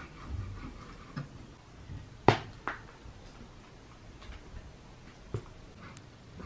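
A few sharp knocks over a quiet background, the loudest about two seconds in with a second just after it, and two fainter ones later.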